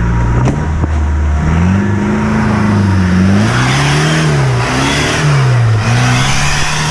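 Land Rover Discovery's engine revving up and down several times as it drives through deep mud and water, with a loud hiss in surges from the tyres churning and spraying mud.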